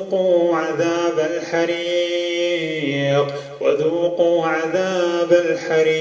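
A man reciting Quranic verses in a slow, melodic chant, drawing out long held notes, with a short break for breath about three and a half seconds in.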